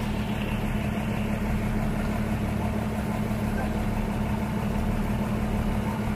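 A fishing boat's engine running steadily with an even, droning hum, with water from a deck hose splashing into the fish hold.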